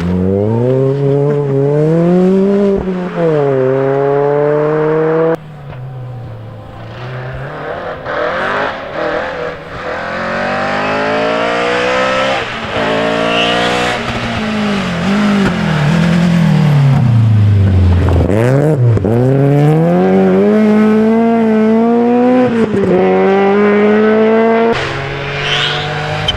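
Rally car engines run hard under acceleration, the pitch climbing and then dropping at each upshift, and falling low when a car lifts off and slows before pulling away again. The sound changes abruptly a few times, as separate cars go by in turn.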